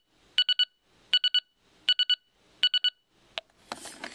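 Electronic alarm beeping from a 1980s talking alarm clock, set to its beep alarm rather than the rooster crow: quick bursts of three short high beeps, about one burst every three-quarters of a second, four times. The beeping stops about three seconds in, followed by a click and some rustling of handling near the end.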